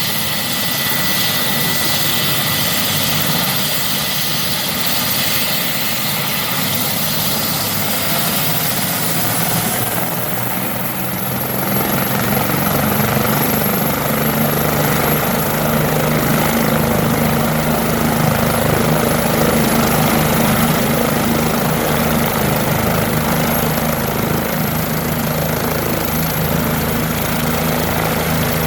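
Bell 429 twin-turbine helicopter running: a steady turbine whine and rotor noise, then about ten seconds in a higher whistle comes in and the low rotor beating grows louder and holds, as power comes up for take-off.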